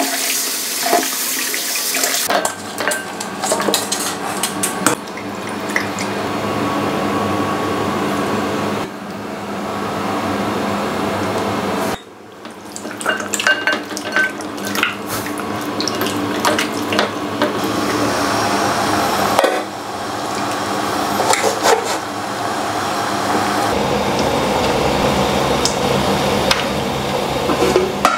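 Kitchen tap running and splashing onto chicken in a metal colander over a glass bowl, with clinks and knocks of dishes and pots. The sound changes abruptly several times.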